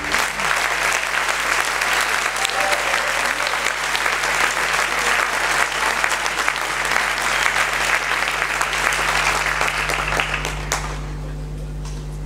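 Audience applauding steadily, dying away about eleven seconds in and leaving only a low steady hum.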